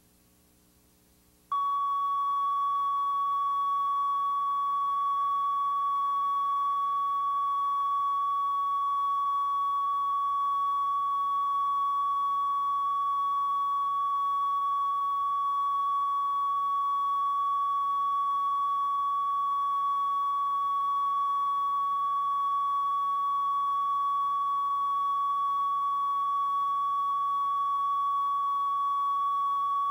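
A steady electronic test tone on the VHS tape's audio track, one unbroken pitch a little above 1 kHz, switching on suddenly about a second and a half in and holding at an even level.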